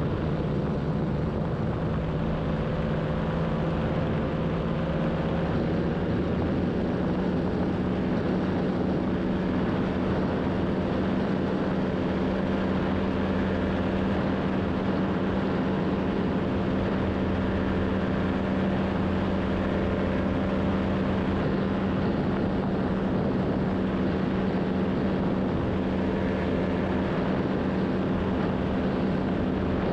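Paratrike's paramotor engine and propeller running steadily in flight, the pitch creeping up slightly over the first few seconds and then holding.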